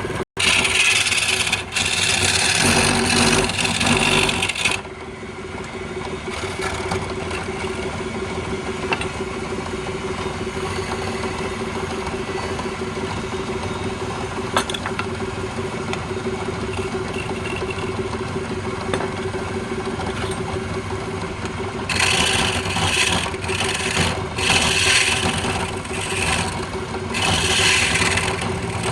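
Wood lathe running with a steady motor hum, with loud scraping of a tool against the spinning wood for the first few seconds and again through most of the last quarter.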